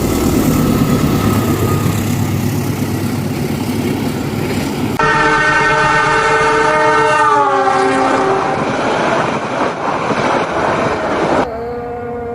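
Passenger train running past with a loud rumble, then a diesel locomotive's horn sounding a chord that drops in pitch as it passes. Near the end the sound changes abruptly to a quieter, steady horn note.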